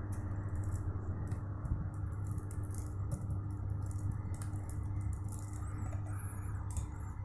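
Steady low electrical hum and hiss, with faint, irregular clicks from a computer keyboard as a password is typed.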